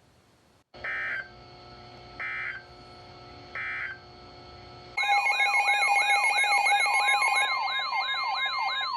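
Emergency Alert System signalling on a weather alert broadcast: three short screeching data bursts about a second apart, the end-of-message code closing a warning. Halfway through a loud warbling alert alarm begins, rising and falling about twice a second over a steady tone, announcing the next warning.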